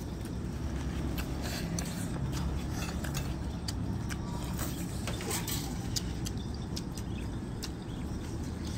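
Two people eating: spoons clicking against plates and mouth clicks from chewing, many short sharp ticks at irregular times, over a steady low hum.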